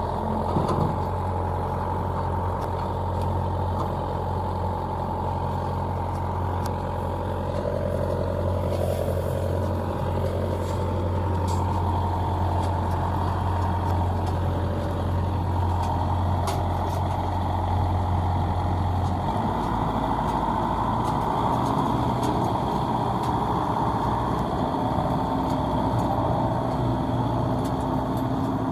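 Combine harvester engines running steadily with a machine whine over them; the deep engine hum drops about two-thirds of the way through.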